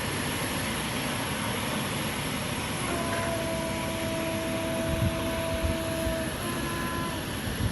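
Steady aircraft engine noise, with a steady whine-like tone joining in about three seconds in and fading out near the end.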